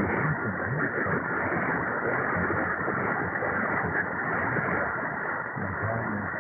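Shortwave AM reception of a weak, distant broadcast on 9630 kHz, presumed to be Brazil's Radio Aparecida: steady hiss and static, muffled by the narrow receiver filter, with the station's audio faint and unintelligible beneath it.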